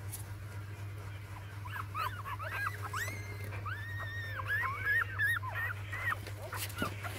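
A litter of young puppies whimpering, with many short, high whines in quick succession, from about a second and a half in until near the end, over a steady low hum.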